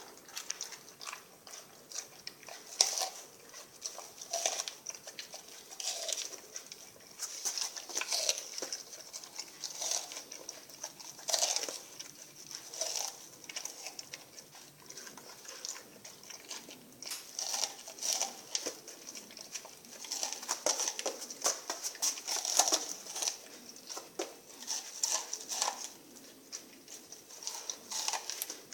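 Rottweiler chewing raw sardines: a steady run of irregular wet smacks and crunching clicks from her jaws and teeth.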